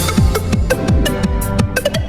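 Electronic background music with a fast beat of drum hits, each with a bass note that drops sharply in pitch.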